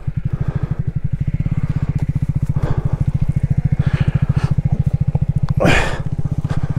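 Royal Enfield Classic 350's single-cylinder engine starting and then idling with an even, rapid beat. There is a brief burst of noise near the end.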